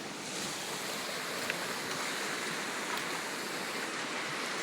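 River water rushing steadily, a constant even roar of the current.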